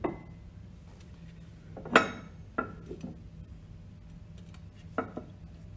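Metal hand tools and loose parts clinking on a Grundfos NBS pump's shaft and shaft-seal housing as it is dismantled: about five sharp metallic clinks, the loudest about two seconds in.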